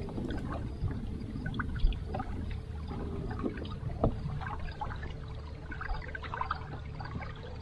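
Water lapping and trickling against a bass boat's hull, with scattered small knocks and clicks. A faint steady hum runs for a few seconds in the middle.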